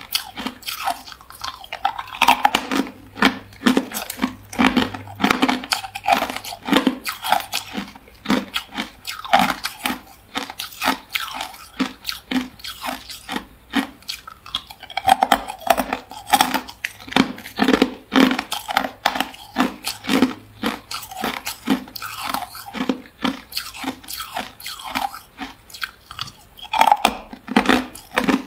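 A person biting and chewing hard clear ice cubes: a steady run of sharp, crackling crunches, about two to three a second.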